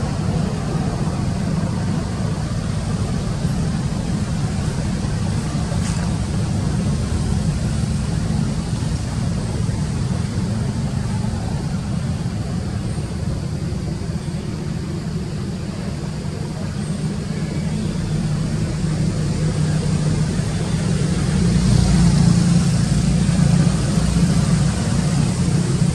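Steady low rumble, growing louder about three-quarters of the way through.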